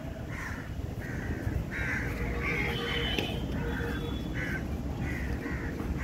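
A bird cawing repeatedly, about two short harsh calls a second, over a low steady rumble.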